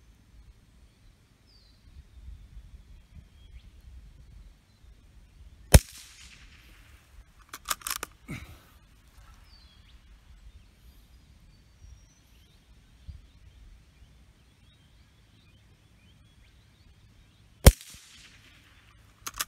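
Two shots from a Savage Model 5 bolt-action .22 rimfire rifle, about twelve seconds apart. Each is followed within two seconds by a quick run of metallic clicks as the bolt is worked to feed the next round from the tube magazine.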